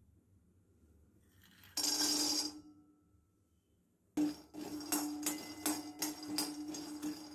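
Raw groundnuts poured from a steel tumbler into an empty kadai, a brief loud rattle about two seconds in. After a pause, a metal ladle stirs and scrapes the nuts around the dry pan, making quick repeated clinks over a steady ringing from the pan.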